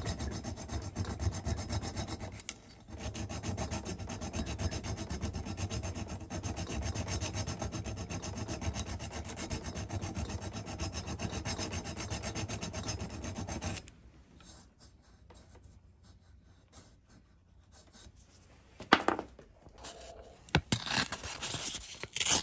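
Hand file rasping rapidly back and forth in the exhaust port of a two-stroke engine cylinder, filing down a rough spot inside the port. It pauses briefly about 2.5 seconds in and stops about 14 seconds in. After a few light knocks, a sheet of sandpaper rustles as it is handled near the end.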